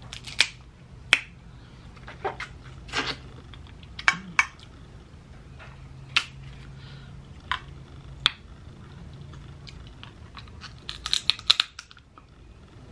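Close-miked eating sounds from a seafood boil mukbang: wet lip smacks and chewing clicks about every second, with a quick flurry of smacks about eleven seconds in.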